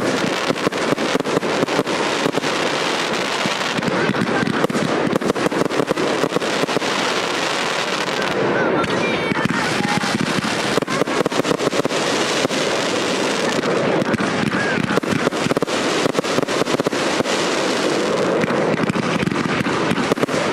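Fireworks display: firework cakes firing a rapid, continuous string of shots and bursting stars, several bangs a second.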